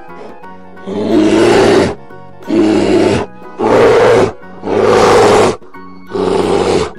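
A bear growling: five loud, deep calls of about a second each, over soft background music.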